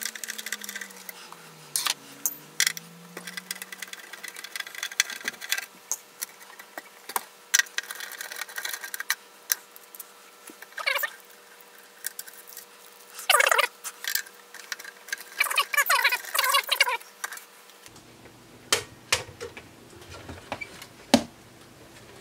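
Screwdriver and hands working on the metal case of an Agilent E3646A bench power supply: scattered clicks and taps of screws and panel parts, with a few short metal-on-metal scrapes as a case panel is slid off.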